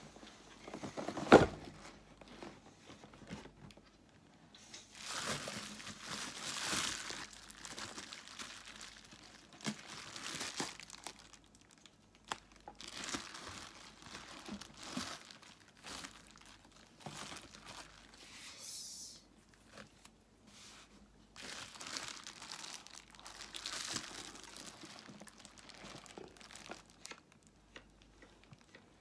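Bubble wrap crinkling and rustling in irregular bursts as hands pull it back from apples packed in a cardboard box. A single sharp knock about a second in.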